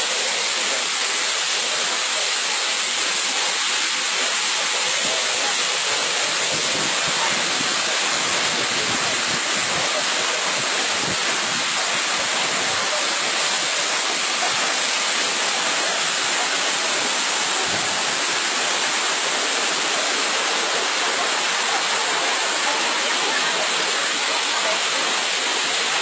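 Tall waterfall pouring over rock into a pool below: a loud, steady rush of falling water.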